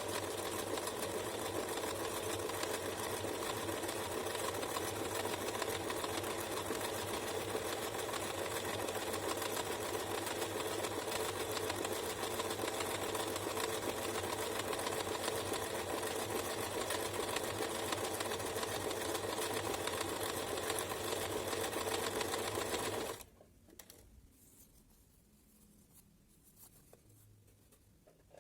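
Domestic sewing machine running steadily, stitching an overcast seam finish along a fabric edge; it stops abruptly about five seconds before the end.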